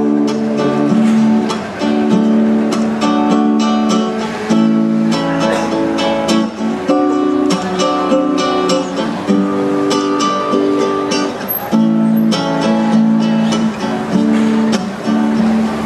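Acoustic guitar playing an instrumental passage: a steady run of plucked notes and chords.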